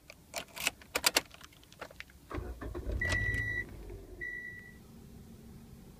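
Keys jangle and click in the ignition of a 2009 Toyota Yaris, then its 1.5-litre four-cylinder engine starts about two seconds in and settles to a steady low idle. Two short high electronic beeps sound while it starts.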